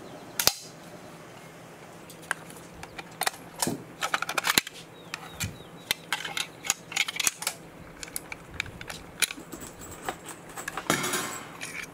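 Metal clicks and clacks of a MAC-10 submachine gun being taken apart by hand, its parts sliding and knocking together, with a brief scraping noise near the end.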